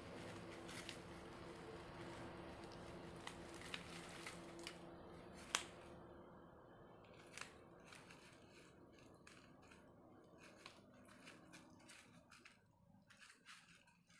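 Faint scattered clicks and crunches of a young puppy gnawing and tugging at a slipper, with one sharper click about five and a half seconds in. A faint low hum underneath fades away during the first half.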